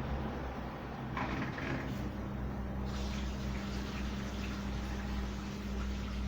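Samsung washing machine's drain pump starting about two seconds in with a steady hum, and water rushing through it soon after as the tub is pumped out. A short sound comes about a second in, just before the pump starts.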